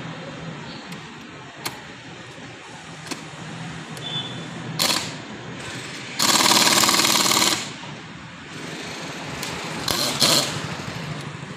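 Pneumatic air hammer with a bead-breaker bit, hammering on a tyre bead to break it loose from the steel rim. It runs in bursts: a brief one about five seconds in, a longer one of about a second and a half soon after, and a couple of short ones near the end.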